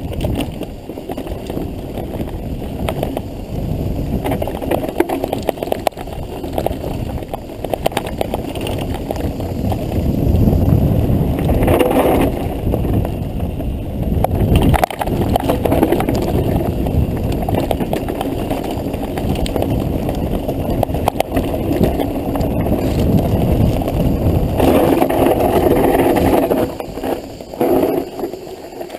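Mountain bike ridden over rough ground: a steady rumble of tyres and wind noise with continual rattling clicks and knocks.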